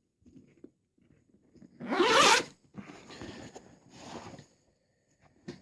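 Zipper on a bag's back compartment being pulled open: one loud, quick stroke about two seconds in, followed by two weaker, slower strokes.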